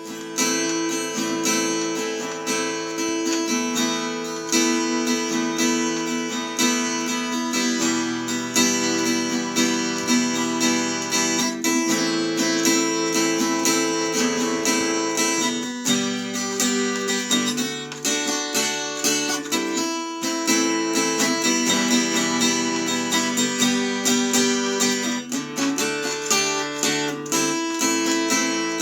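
Background music: strummed acoustic guitar playing a steady chord progression.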